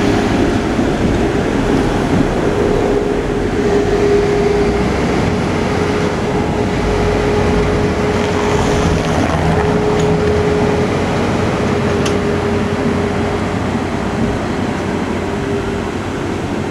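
Two coupled trams passing close by and pulling away along the street track: a steady rumble of wheels and running gear with a held hum beneath it, fading a little near the end.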